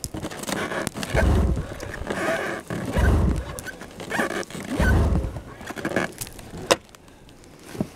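An Arctic Cat 440 Snow Pro snowmobile's two-stroke engine is pull-started cold: three hard yanks on the recoil starter rope, about two seconds apart, each with a short low churn as the engine turns over without catching. A sharp click comes near the end.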